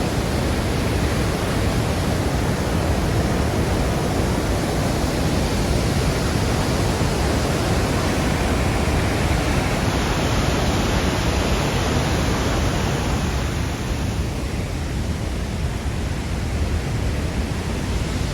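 Steady rush of Kakabeka Falls, water pouring over the cliffs, heard as an even, loud noise without any pulse; its higher part eases a little about fourteen seconds in.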